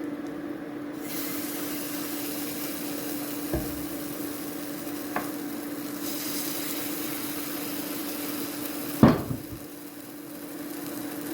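Pumpkin pancake batter sizzling in hot vegetable oil in a frying pan, the sizzle starting suddenly about a second in, over a steady low hum. A few light utensil clicks, and a sharp knock against the pan about nine seconds in.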